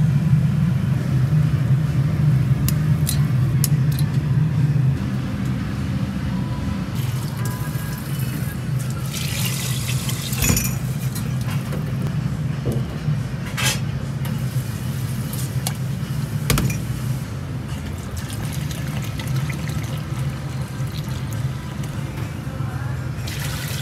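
Kitchen prep sounds over a steady low rumble of burner or ventilation, louder for the first five seconds. A sink spray tap runs water for about a second and a half around nine seconds in. A few sharp clinks of pots and utensils follow.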